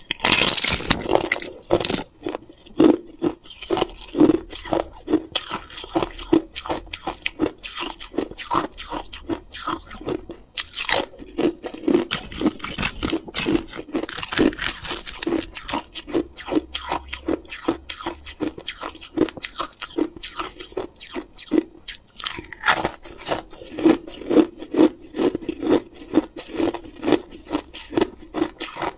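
Close-miked crunching of hard, clear ice being eaten: a thin disc of ice bitten off with a loud crack at the start, then steady chewing as the ice is ground between the teeth, with fresh bites about a third of the way in and again about three quarters through.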